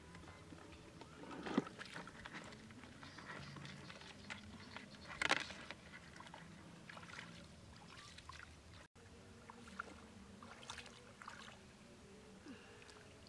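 Bare feet wading and stirring shallow flowing water, with faint sloshing and light splashes, and a few sharp knocks, the loudest about five seconds in.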